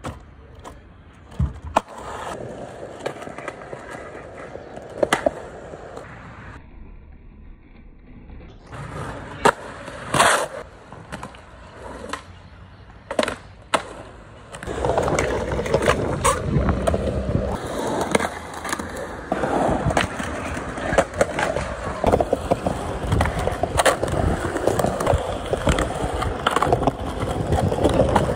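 Skateboard wheels rolling on concrete, broken by sharp clacks of tail pops and landings, with the scrape of a board grinding a concrete ledge. The rolling gets louder about halfway through.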